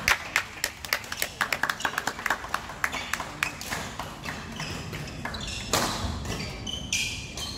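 Badminton rackets striking shuttlecocks: a quick run of sharp taps for the first few seconds, then a few louder single smacks further apart.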